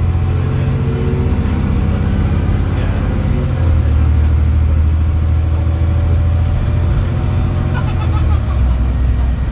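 ADL Trident double-decker bus's diesel engine heard from the upper deck while under way, a loud low drone whose note shifts about three and a half seconds in and again near the end.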